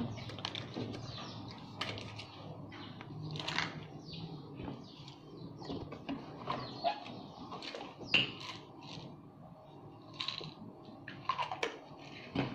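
Irregular light clicks, taps and rustles of things handled right at the phone, over a faint low room murmur.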